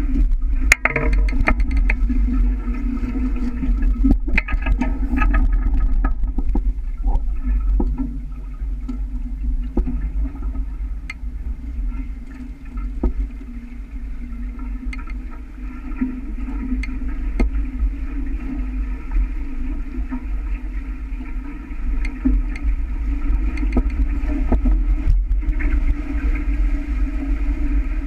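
Wind rumbling on the microphone and water rushing past the hulls of a sailing catamaran under way, with scattered sharp knocks and ticks.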